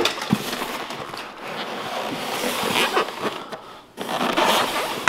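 Stiff black foam packing halves rubbing and scraping against each other and the boxed unit as they are pried apart. A continuous rough scraping with a few light knocks, easing off briefly just before the end.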